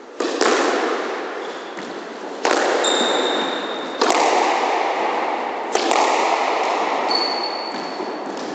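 Squash ball being struck and hitting the court walls during a rally, four loud hits about one and a half to two seconds apart, each with a long echo in the enclosed court. Short high squeaks from shoes on the wooden floor come in between.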